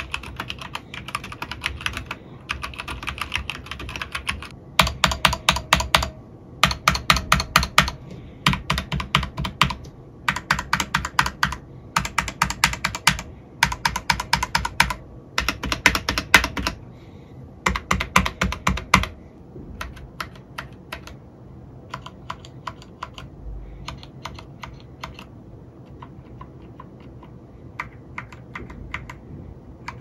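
Typing on a Keychron K8 mechanical keyboard with Gateron Red switches. The first few seconds are gentle, quiet keystrokes. About five seconds in comes harder, louder typing in short runs of about a second each. From about nineteen seconds the typing turns gentle and quiet again.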